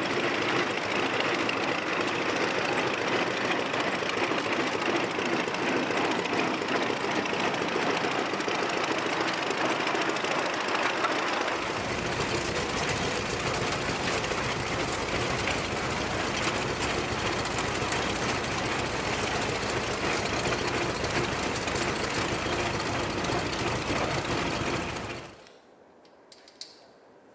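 Case 10-20 tractor's four-cylinder vertical gasoline engine running steadily with a fast, rhythmic beat as the tractor drives. About twelve seconds in the sound becomes fuller and deeper. Near the end it cuts off to a quiet room with one faint click.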